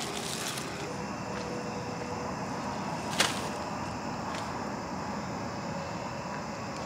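Steady hum of distant interstate traffic, with a single sharp knock about three seconds in as a plastic bag is set down on the wooden picnic table.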